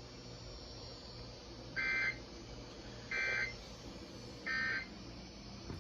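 NOAA Weather Radio SAME end-of-message data: three short, identical two-tone digital squawks about a second and a half apart, signalling the close of the alert. A low steady hum and hiss from the radio run underneath.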